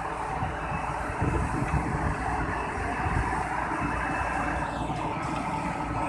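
Tandem steel-drum asphalt roller's diesel engine running steadily as the roller drives slowly over freshly laid asphalt.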